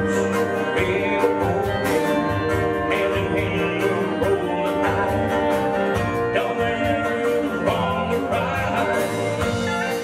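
Live country band playing: acoustic guitar, electric guitar, bass guitar and drum kit, with a steady beat.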